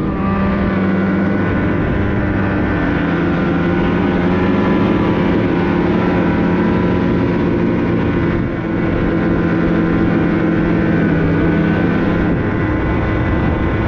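Snowmobile engine running at a steady pitch, heard on board from the rider's helmet camera, with a brief dip in level about eight and a half seconds in.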